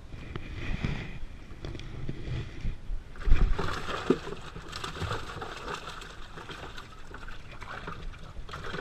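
Sounds of a fishing boat on the water: a single heavy knock about three seconds in, followed by water sloshing and splashing against the hull.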